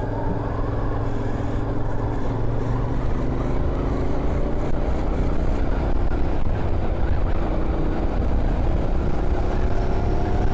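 Royal Enfield Continental GT 650's 648 cc parallel-twin engine running as the motorcycle rides along, with a low rumble and wind noise. Its pitch climbs slowly over the last several seconds.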